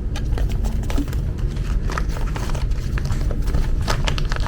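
Blind-box toy packaging being handled and opened by hand: a quick, uneven run of crinkles, rustles and small clicks over a steady low hum.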